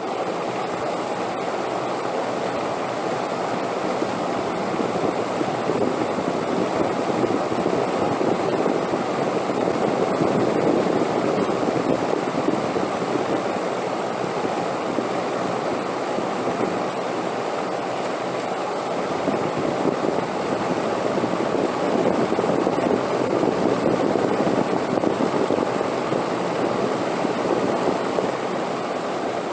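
Steady wind noise with a deep rushing tone, slowly swelling and easing in long gusts, loudest about a third of the way in and again near the end.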